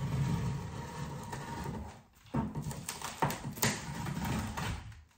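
Scissors slitting the packing tape along the top of a cardboard box, with scraping and crackling of tape and cardboard. It pauses briefly about two seconds in, then carries on with a few sharp snaps.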